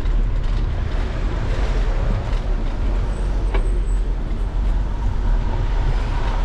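Wind and road rumble on a bicycle-mounted GoPro while riding, with car traffic close by. One short sharp click about three and a half seconds in.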